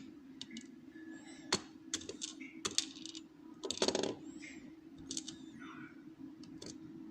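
Small metal lock parts and tools clicking and tapping as the rim cylinder is taken apart, a handful of sharp clicks, the loudest about four seconds in, over a steady low hum.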